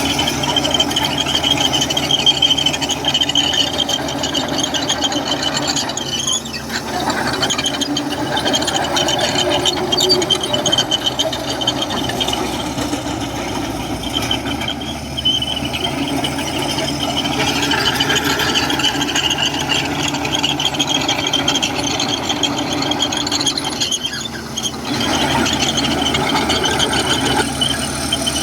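Komatsu crawler bulldozer working, its engine running under load with a steady high-pitched squeal over the machine noise. The noise dips briefly twice, about a quarter of the way in and again near the end.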